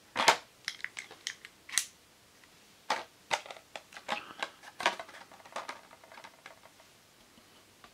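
Stiff plastic blister pack on a cardboard toy-car card giving sharp, irregular clicks and crackles as it is gripped, flexed and cut at with a utility knife.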